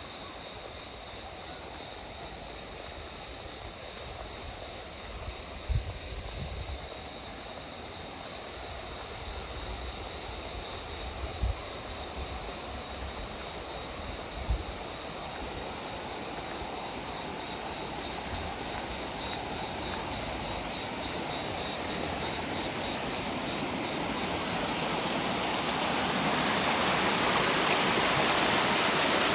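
Dimçayı river water rushing steadily, growing louder over the last few seconds, with a few brief low bumps.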